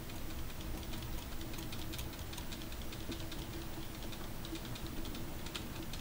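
Faint, irregular light clicks and ticks as a stick is worked through wet epoxy on a toilet tank lid, over a steady faint hum.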